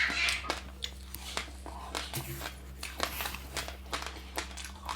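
Close-up chewing of passionfruit pulp with sesame seeds: the seeds crunch in quick, irregular crisp crackles, several a second.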